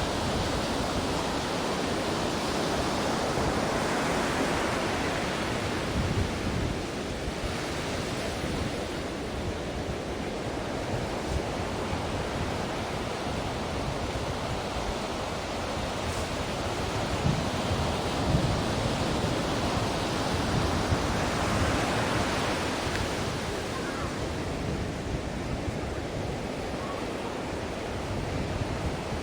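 Ocean surf washing on a shore: a continuous rush of breaking waves that swells twice, a few seconds in and again past the middle.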